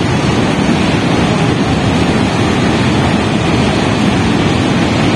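Muddy flash-flood river in spate, rushing steadily and loudly.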